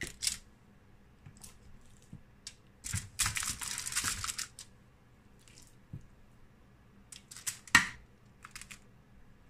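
Aluminium foil lining a baking tray crinkling as marinated chicken pieces are set down on it with metal tongs, with a longer rustle about three seconds in. Short sharp clicks and taps of the tongs come throughout, the loudest just before the end.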